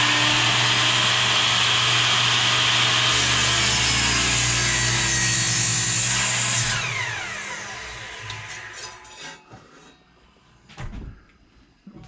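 Electric sliding miter saw running at full speed through a cut in wood, then switched off about six and a half seconds in, its blade winding down with a falling whine. A couple of light knocks come near the end.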